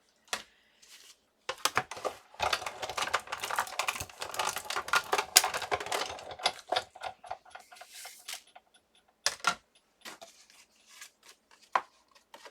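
Cardstock and die-cut paper pieces handled on a craft table: a dense run of quick clicks and rustles lasting about five seconds, then scattered taps.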